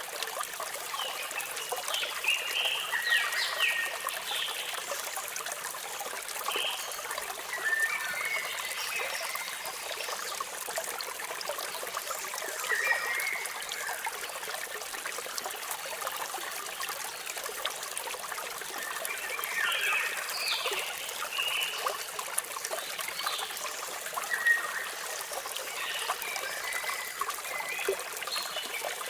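Steady rush of falling, trickling water, with small birds chirping in short clusters every few seconds.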